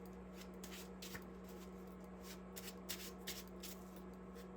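Tarot cards being shuffled by hand: a quiet, irregular run of short card flicks over a faint steady hum.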